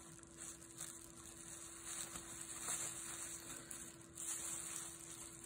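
Faint rustling and crinkling of bubble wrap as scope mount parts are handled on it, a little louder around the middle and again near the end, over a faint steady hum.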